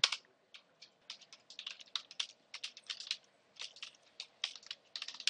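Computer keyboard being typed on: an irregular run of quick key clicks as a command is keyed in.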